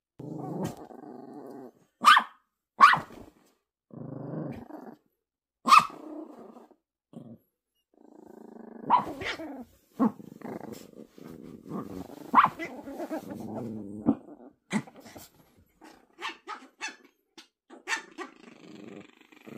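Poodles growling at each other over a ball, in low rumbling spells broken by sharp single barks, then a quick run of short yaps near the end.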